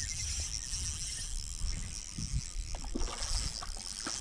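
A hooked bass being played on rod and reel: a low handling rumble with faint splashing as the fish thrashes at the surface, and a few light clicks from the fishing reel in the second half.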